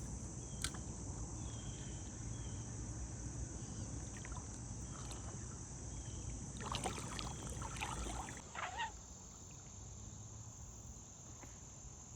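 Paddling a small kayak on a creek: low rumbling water and hull noise with a few knocks of the paddle, the rumble stopping about two-thirds of the way through. Insects keep up a steady high drone throughout.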